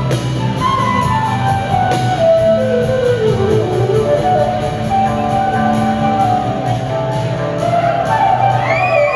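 Live rock band playing an instrumental passage: a lead melody line wanders down and back up over a steady low bass and chord bed.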